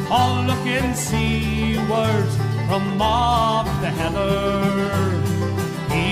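Background country music with plucked string instruments and a wavering sustained melody over a steady bass.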